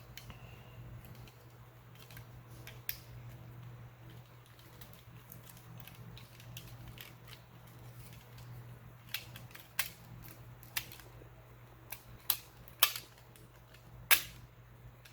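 Small plastic clicks and snaps as the parts of a PS4 controller are handled and fitted back together, scattered and sharper in the second half, over a steady low hum.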